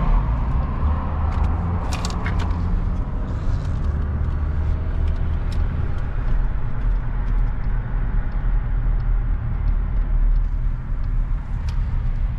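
Steady low rumble of a car on the road, with a few faint clicks.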